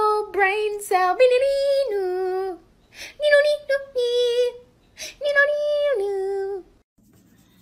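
A high singing voice sings a melody of held notes that step up and down, in three phrases, the last ending about seven seconds in.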